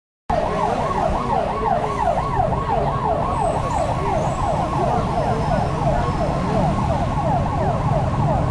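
Electronic siren sounding a rapid yelp, its pitch sweeping about four to five times a second, starting suddenly about a third of a second in, over a steady low rumble.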